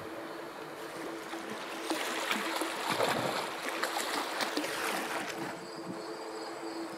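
Lake water lapping and splashing against granite shoreline rocks, loudest in the middle few seconds. Near the end a steady high insect trill sets in.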